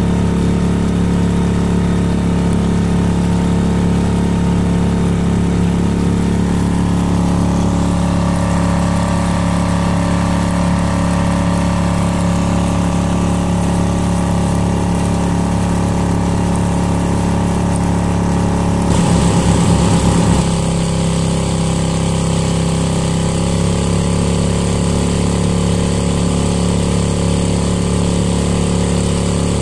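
Sail F 2.5 single-cylinder four-stroke outboard motor (a Yamaha F 2.5 clone) running steadily, driving an inflatable boat. About two-thirds of the way in there is a brief louder, wavering patch, after which the engine note shifts slightly.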